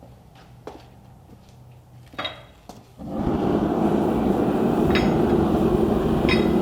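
Metalworking shop sounds: a few light knocks and clinks of metal, then, about three seconds in, a loud steady rushing noise starts, with two short metallic clinks over it.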